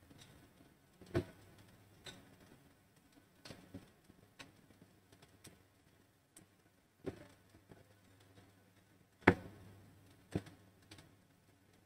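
Faint, irregular clicks and taps, about ten of them, with a sharper knock about nine seconds in, over a low steady hum.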